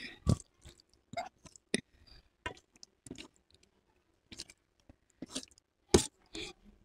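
Close-miked sound of fingers mixing rice and chole (chickpea curry) in a steel plate: a string of irregular wet squishes and clicks, the loudest about six seconds in.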